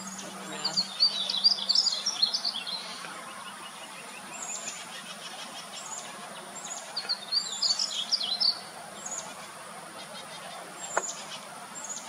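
Painted bunting singing: a rapid warbling phrase of high notes at the start and a second one about seven seconds in, with single short high notes between.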